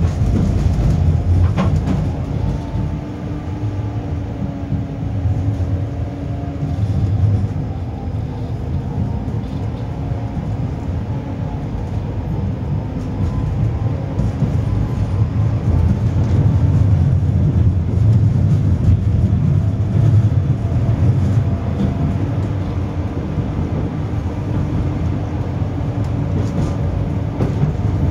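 A 71-931M Vityaz-M tram running on its rails: a steady low rumble with a faint whine that falls in pitch early on and rises again near the end as the tram changes speed.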